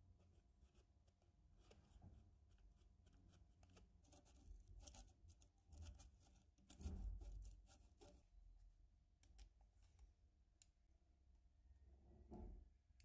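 Faint scraping and clicking of a steel blade working at an old brass oil-lamp burner, prying the soot-caked parts apart. Clusters of sharp ticks come about four seconds in and again around eight to ten seconds.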